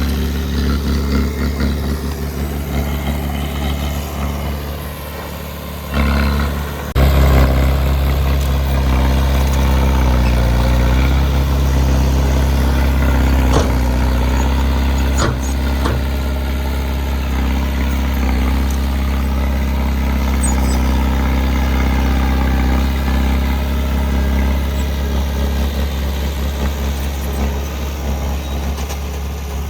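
Heavy diesel engine of earthmoving equipment running steadily with a low drone, the sound shifting abruptly about six and seven seconds in. A couple of sharp metallic knocks come in the middle.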